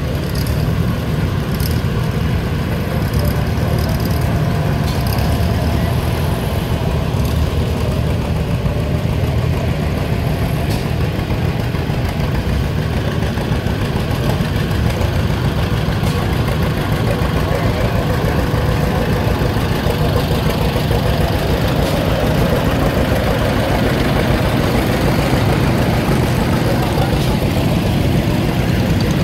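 Antique farm tractor engines running as the tractors drive slowly past one after another: a red Farmall, then a two-cylinder John Deere, then small garden tractors near the end. The engine noise is steady and low throughout.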